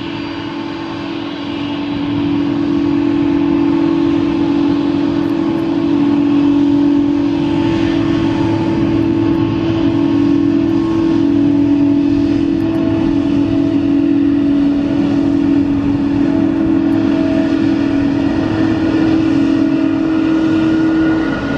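Boeing 777-200's twin turbofan engines running at taxi power: a steady, loud drone with a low hum and several higher whining tones, growing a little louder about two seconds in.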